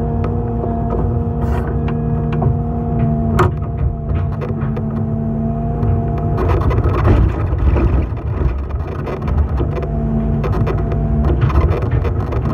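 Hydraulic excavator running, its diesel engine rumbling under a steady whine of several tones, with a couple of sharp clicks in the first few seconds. From about six seconds in, as the machine turns, the sound gets rougher and noisier with quick rattling ticks.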